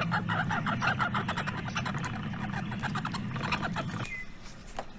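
An animal sound effect: a fast run of short chattering calls, about ten a second, over a low hum, cutting off about four seconds in.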